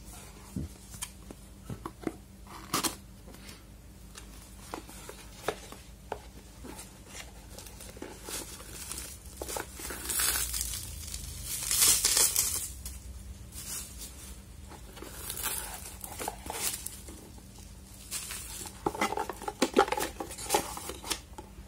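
Handling of a small cardboard webcam box and its bubble-wrap packing. There are scattered taps and scrapes of the cardboard, the plastic wrap crinkles loudest about halfway through, and a quick run of taps and clicks comes near the end.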